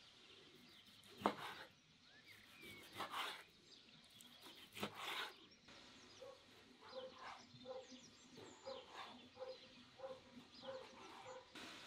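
Kitchen knife cutting on a wooden cutting board: a few sharp knocks in the first five seconds, the loudest about a second in, then a run of about ten lighter, evenly spaced strokes roughly twice a second. Birds chirp faintly.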